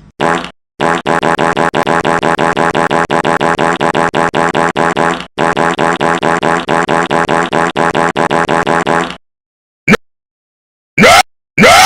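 A buzzy, fart-like soundboard sound effect retriggered over and over, about five times a second for roughly eight seconds. It stops abruptly, and near the end a few short, loud effects with gliding pitch follow.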